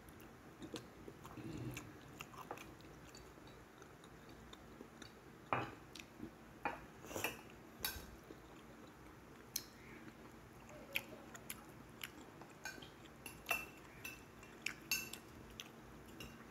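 Close-up eating sounds: faint chewing, with sharp, irregular clicks of chopsticks against a plate, most of them in the second half.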